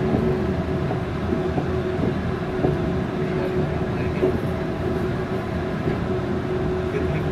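Yurikamome rubber-tyred automated guideway train running at steady speed, heard from inside the front car: a steady rumble of the tyres on the guideway with a constant hum from the drive.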